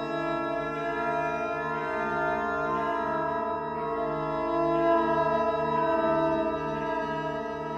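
Background music: slow, sustained organ-like chords over a low note that pulses about twice a second.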